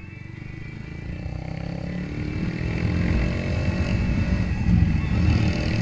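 Haojue Chopper 150 motorcycle's single-cylinder engine and exhaust accelerating, the revs climbing and the sound growing steadily louder.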